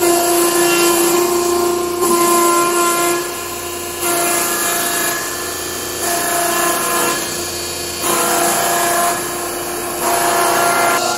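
Log sawdust making machine's high-speed rotating cutter grinding a log into sawdust as the belt conveyor feeds it in: a steady machine hum with a constant tone under dense grinding noise, which grows louder and quieter about every two seconds as the log bites into the blades.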